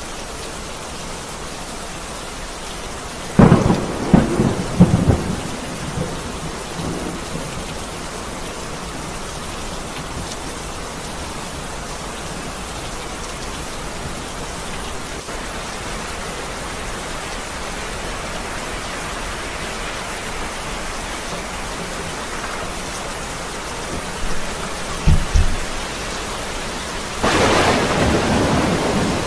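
Steady rain falling, with thunder: a loud crackling peal a few seconds in, a couple of short low thumps later, and another loud rumbling clap near the end.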